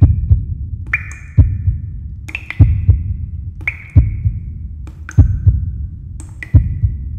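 Heartbeat sound effect: a low thump, doubled like a heartbeat, about every 1.3 seconds, with short high ringing tones in between.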